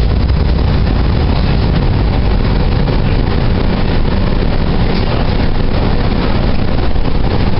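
Calgary C-Train light-rail car running along the street, heard from inside the cabin as a steady, even rumble and rush.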